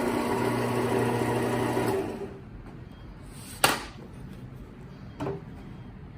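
Sysform D-502 double-head paper drill's motor running steadily with a humming whine, then shutting off about two seconds in. Two sharp knocks follow, the first louder.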